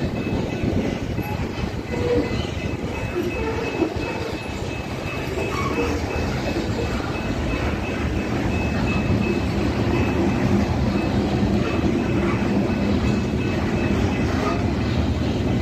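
A CN freight train's covered hopper cars rolling past, their wheels running on the rails in a steady rumble that grows louder about halfway through.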